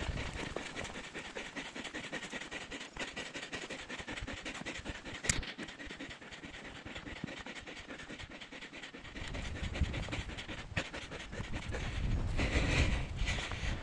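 A man panting hard and fast, out of breath from running up a steep hill. A low rumble and rustling noise join about nine seconds in and grow loudest near the end.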